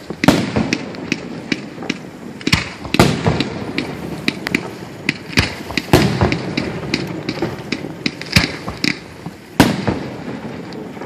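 Fireworks display: a rapid string of aerial shell bangs and crackles, with the biggest booms at the start and about three, six and nine and a half seconds in, each followed by a short rumble.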